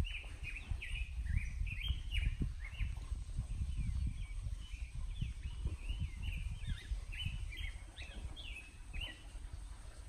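Several birds chirping in quick, short calls throughout, over a low, uneven rumble.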